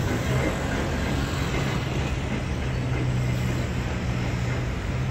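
Freight train of loaded car-carrier wagons rolling away along the track: a steady rumble with a low hum underneath.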